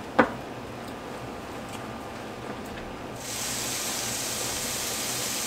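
Chopped bacon starting to sizzle in a nonstick frying pan on an electric stove as the pan heats. A steady hiss gets louder and brighter about three seconds in, and there is a single light click near the start.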